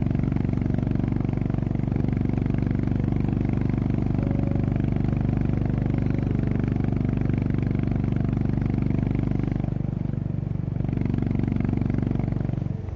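Honda CB350RS's single-cylinder engine and exhaust pulsing steadily while the bike is ridden at a constant throttle. The level dips slightly about ten seconds in and drops off sharply at the very end.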